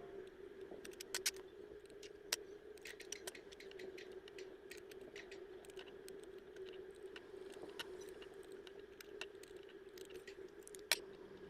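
Faint, irregular small clicks and taps from handling crafting tools, over a steady low hum. The sharpest tap comes near the end.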